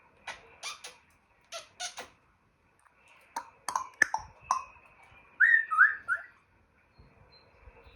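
African grey parrot making its mimicked sounds: two pairs of short noisy pops, a quick run of sharp clicks, then three short whistled notes about five and a half seconds in.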